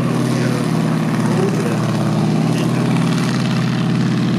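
M4A1 Sherman tank's Continental R975 nine-cylinder radial engine running steadily.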